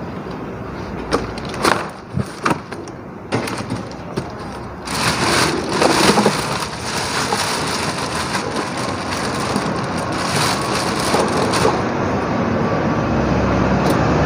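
Flattened cardboard boxes being set down and stacked with a few sharp knocks, then a plastic rubbish bag full of bottles and cartons rustling and crackling for several seconds as it is handled.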